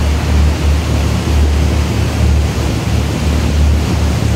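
Wind rumbling and gusting on the microphone aboard a moving canal tour boat, over a steady rushing noise of the boat's passage through the water.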